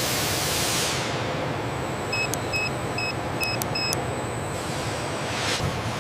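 Steady workshop machinery noise with a hiss of air that cuts off about a second in, then five short electronic beeps, evenly spaced a little under half a second apart, with a few sharp clicks among the last ones, and a brief whoosh near the end.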